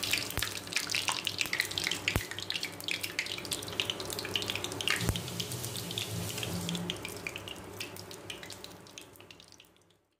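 Food sizzling in hot oil in a deep-frying wok: a steady dense crackle of small pops with a few louder single pops, fading out near the end.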